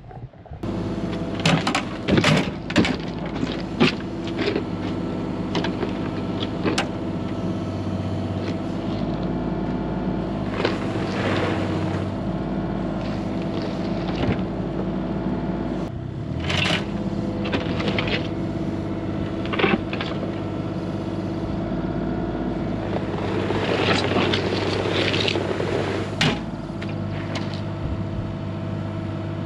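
Small excavator's engine running steadily, with scattered clanks and scraping as it handles a heavy concrete block that is at the limit of what the machine can lift.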